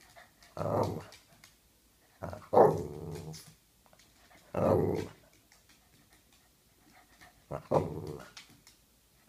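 Boston terrier growling and grumbling in four short bursts of about a second each, a playful demand for the ball to be thrown.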